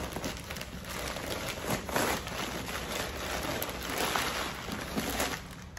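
Crumpled paper stuffing rustling and crinkling as it is pulled out of a handbag, a continuous crackle of many small crinkles.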